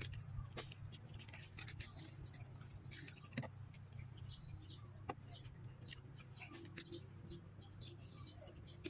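Faint scattered clicks and rubbing from handling a speargun's latex rubber bands against its stock, over a low steady hum.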